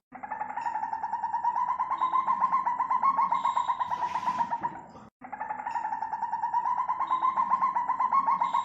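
African civet calling: a rapid pulsing call held at a steady pitch, running about five seconds, breaking off abruptly and starting again after a very short gap.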